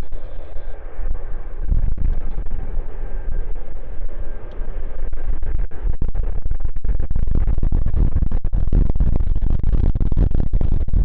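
Strong wind buffeting the phone's microphone, heavily distorted and crackling, over a low jet-aircraft rumble that grows louder in the second half.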